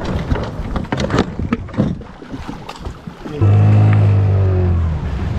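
Knocks and rustling of gear being handled in an inflatable boat, then about three and a half seconds in an outboard motor starts and runs steadily, its pitch easing down slightly.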